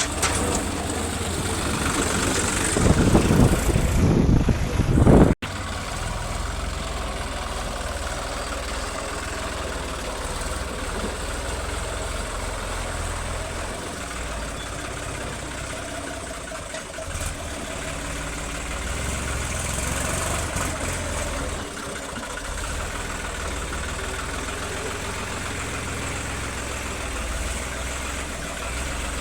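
Heavy machinery's engine running steadily. It is louder and rougher for a few seconds near the start, then breaks off abruptly, and steady running continues.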